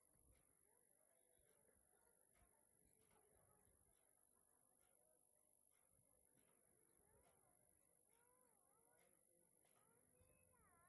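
A steady, very high-pitched electronic pure tone that holds one pitch without a break.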